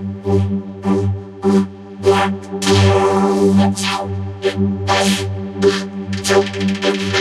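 A cartoon chorus of sneezes and hiccups run through a vocoder effect. The short sneezes and hiccups come out as synthesizer-like pulses over a held low synth note, spaced out at first and coming thicker from about three seconds in.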